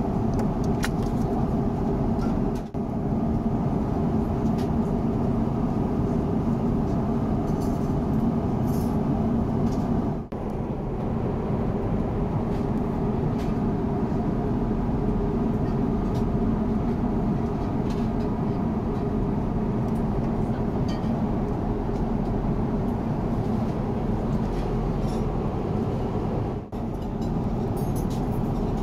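Steady low drone of an Airbus A350-900's cabin in flight: airflow and Rolls-Royce Trent XWB engine noise at cruise. It drops out briefly three times.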